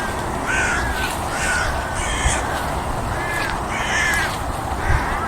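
Crows cawing over and over, a run of harsh calls one after another.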